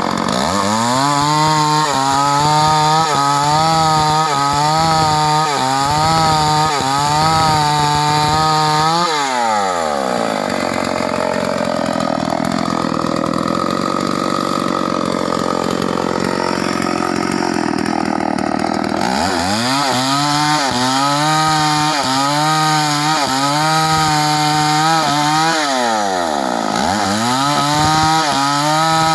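Stihl 038 two-stroke chainsaw running at high revs while ripping a log lengthwise into boards. Its pitch wavers steadily under the load of the cut and dips and recovers a few times.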